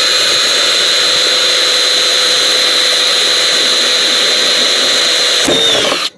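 Milwaukee brushless cordless drill running at steady full speed as it bores a hole through plastic, with a high, even whine. Near the end the motor winds down in pitch and stops.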